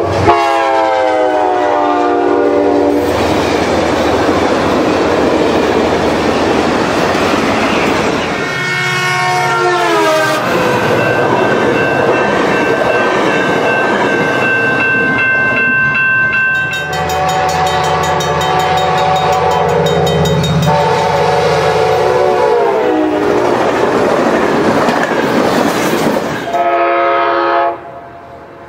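Fast diesel passenger trains passing at speed, sounding their multi-chime air horns in several blasts. The horn chords drop in pitch as the trains go by. Between the blasts comes the rush and wheel clatter of the passing cars.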